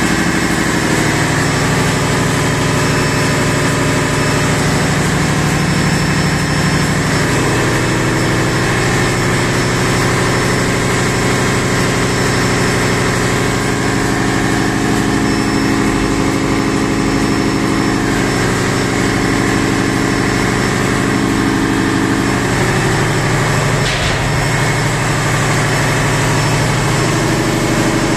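Steady drone of a ship's engine room, from running auxiliary machinery such as the generators and pumps, while the main engine stands stopped with its crankcase open. The hum holds a few steady tones that shift slightly now and then.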